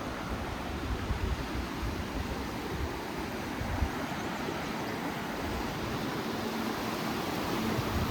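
Steady rush of flowing creek water, with a low rumble underneath that eases about three seconds in.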